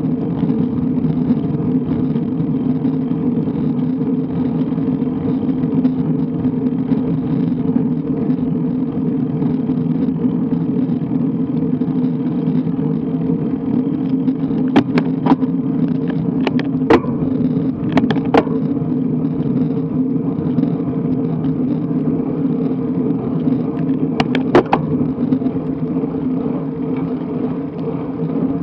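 Steady rumble of a road bike's tyres on tarmac and wind over an action camera's microphone while riding, with a few sharp clicks about halfway through and again near the end.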